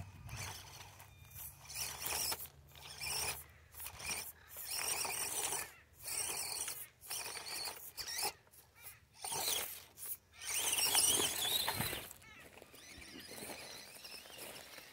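Axial SCX24 Jeep Gladiator micro RC crawler's small electric motor and geartrain whining in short throttle bursts as it crawls over gravel and rocks. A longer whine rises and falls about ten to twelve seconds in, then it goes quieter near the end.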